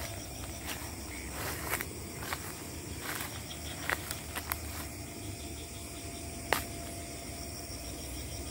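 Footsteps on leaf-strewn forest ground over a steady high chorus of night insects such as crickets. The steps are irregular and thin out after about four seconds, with one sharper snap about six and a half seconds in.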